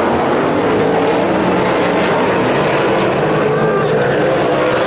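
Several winged sprint car V8 engines running hard on a dirt oval, their pitches rising and falling as the cars race past.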